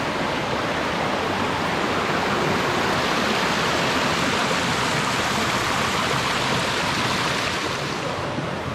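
Steady rush of flowing water, easing off slightly near the end.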